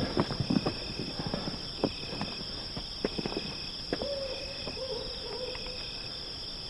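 Forest ambience: footsteps crackling through undergrowth for the first few seconds, then a single long hoot about four seconds in, sinking slightly in pitch, over steady insect chirping.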